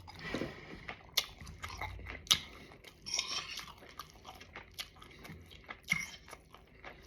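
A person chewing and biting into stewed chicken close to the microphone: soft, irregular mouth sounds with a few sharp clicks scattered through.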